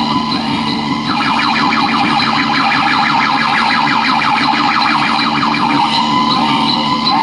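Siren-like electronic effect played loud through a DJ sound system: a steady high tone, then from about a second in a fast warbling run of short rising chirps, many a second, that stops about six seconds in, over a steady low hum.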